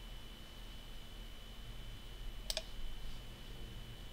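A computer mouse clicks twice in quick succession about two and a half seconds in, over a faint steady hum.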